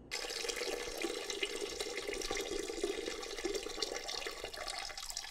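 A person urinating into a toilet bowl: a steady stream of liquid splashing into the water.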